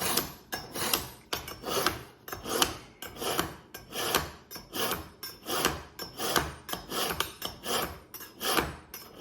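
Japanese kitchen knife blade drawn again and again through the honing side of an EdgeMaker Pro pull-through sharpener: rhythmic steel-on-rod scraping strokes, about two a second, honing an edge that is already sharp.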